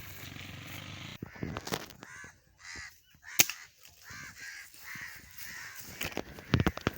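Crows cawing repeatedly in quick short calls, with a single sharp crack about three and a half seconds in and a few more sharp clicks near the end.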